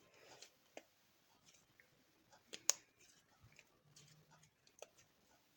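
Slime being handled: faint, scattered clicks and small snaps, with one sharp click about two and a half seconds in.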